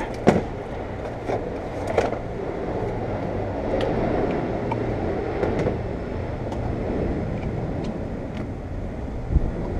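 Steady background noise like road traffic, swelling a little in the middle, with a few light clicks and knocks near the start and one near the end.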